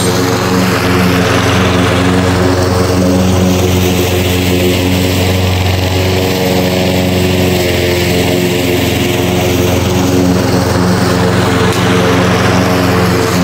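Toro walk-behind rotary lawn mower's engine running at a steady speed while cutting grass, holding one even pitch throughout.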